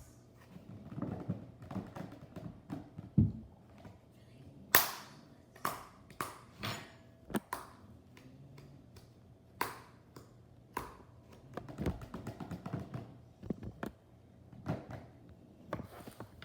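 Someone eating fruit: chewing and mouth sounds, with several sharp, crisp bites or crunches scattered through.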